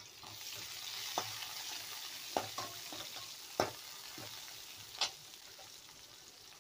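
Chopped shallots, crushed garlic and curry leaves sizzling in hot oil in a kadai, being fried toward golden brown for a tempering. A steel spoon stirs them, clinking against the pan several times. The sizzle swells in the first second, then slowly fades.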